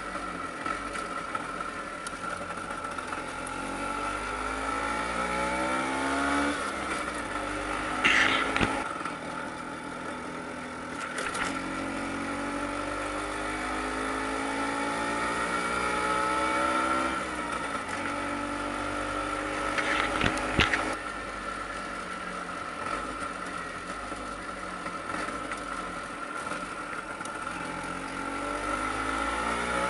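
Vespa PX 150's two-stroke single-cylinder engine running under way, its note climbing as the scooter accelerates and then dropping, several times over. Two short, louder bursts of noise come about eight seconds in and again about twenty seconds in.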